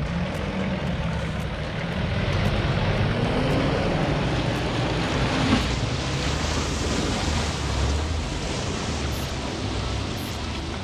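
Off-road 4x4 engine running under load, its note climbing from about two to five and a half seconds in, under a loud steady rushing noise.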